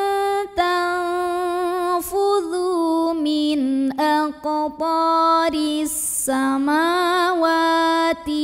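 Quran recitation: a single voice chanting slowly and melodically, holding long notes and bending the pitch in ornamented turns between them, with brief pauses for breath.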